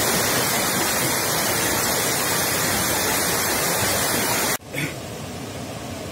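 Floodwater from an overflowing stream rushing across a road and spilling down its side: a loud, steady rush of water. About four and a half seconds in it cuts abruptly to a quieter rush.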